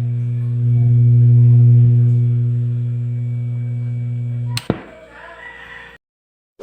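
Konzert KS-301CM amplifier putting out a loud, steady low hum through its speaker: the humming fault under repair. About four and a half seconds in it stops with a click, leaving a faint hiss.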